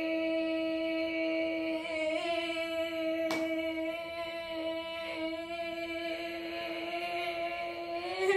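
A young woman's voice holding one sung note steadily and unbroken, the last syllable of a song line stretched as long as her breath allows; the pitch wavers slightly about two seconds in and again near the end. A single sharp click sounds about three seconds in.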